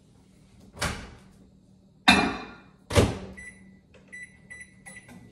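Microwave oven in use: a soft knock, then two sharp clunks of its door opening and shutting, followed by several short high keypad beeps as the heating time is entered.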